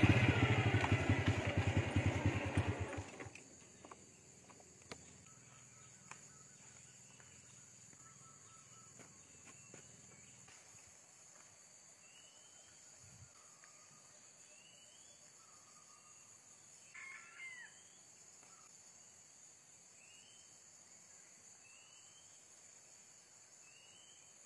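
A motorcycle engine runs and shuts off about three seconds in. A junglefowl rooster then crows once, briefly, past the middle, over faint rising chirps that repeat every couple of seconds.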